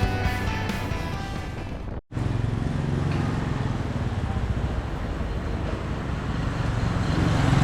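Background rock music with guitar fades and is cut off abruptly about two seconds in. Then street traffic: the steady hum of passing engines, getting louder near the end.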